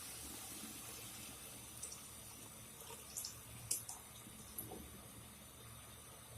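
Water being poured into a cooking pot of peas and meat: a faint, steady pour that slowly tapers off, with a few light clicks around the middle.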